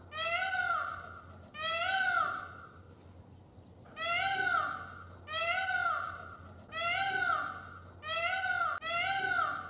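Cat meowing over and over: about seven separate meows, each rising then falling in pitch, with short pauses between them.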